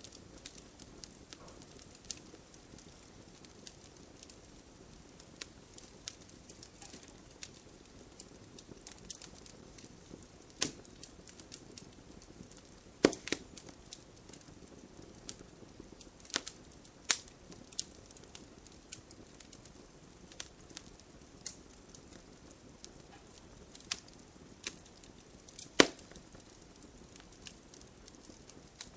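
Wood bonfire crackling, with irregular sharp pops, a few much louder than the rest, over a soft steady hiss of rain.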